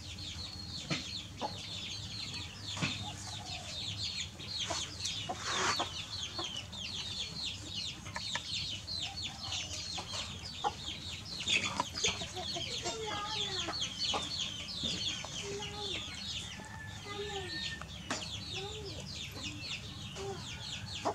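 Chickens clucking and cheeping: a steady stream of quick, high, falling chirps, with lower clucks becoming frequent in the second half. A few sharp clicks stand out.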